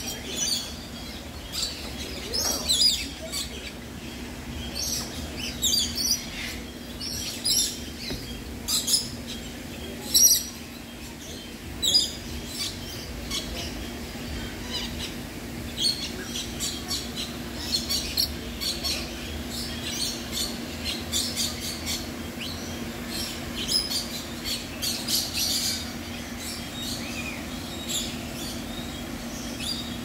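Parrots calling: many short, shrill squawks and chirps, thickest in the first dozen seconds and again in the second half, over a steady low hum.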